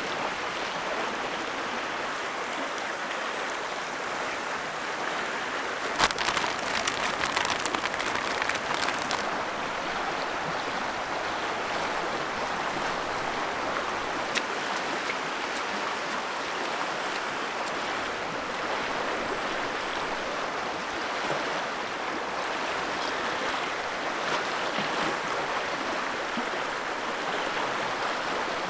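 Steady rush of river rapids running over rocks, with a cluster of sharp crackles for a few seconds starting about six seconds in.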